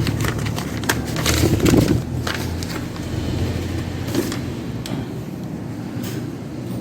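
Handling noise from the plastic housing of an Epson L120 inkjet printer being taken apart by hand: scattered clicks, knocks and scrapes, busiest in the first two seconds, over a steady low rumble.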